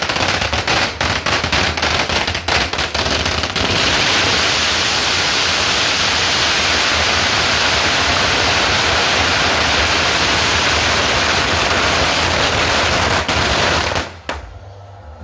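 Strings of firecrackers going off: rapid separate bangs for the first few seconds, then so many at once that they merge into one steady roar, which stops abruptly near the end.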